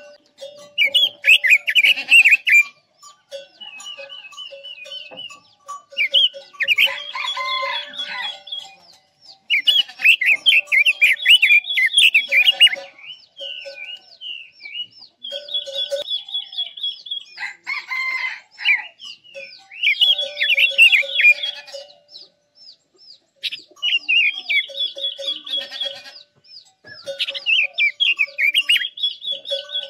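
Red-billed leiothrix singing: bouts of rapid warbling notes a couple of seconds long, repeated with short pauses between them.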